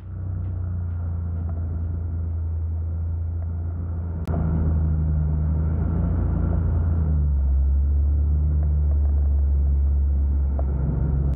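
Paramotor engine and propeller running steadily in flight, heard as a low, muffled drone mixed with wind rumble on the microphone. A sharp click comes about four seconds in, and after it the drone is a little louder.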